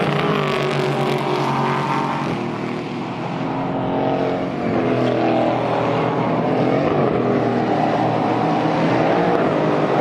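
GT4 race cars' twin-turbo V8 engines at speed on a circuit. One car's engine note falls as it goes by. From about four seconds in, another accelerates, its pitch climbing and dropping back at each gear change.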